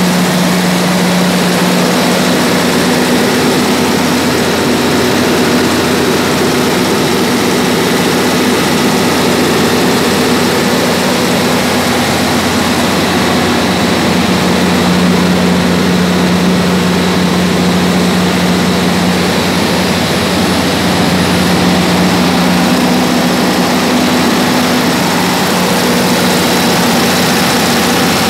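Caterpillar C15 inline-six diesel generator set running steadily at constant speed, a loud even engine drone with a steady hum.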